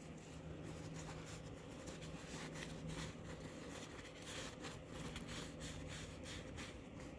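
Faint rubbing and handling noises, light scrapes and clicks scattered irregularly, over a faint steady low hum.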